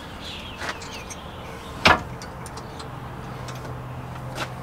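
A sharp clink of a metal hand tool against a car's front steering knuckle about two seconds in, with a few lighter clicks. A low steady hum starts partway through.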